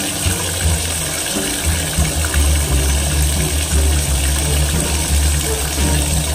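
Water running steadily from a bathtub faucet, with a low, uneven hum beneath it.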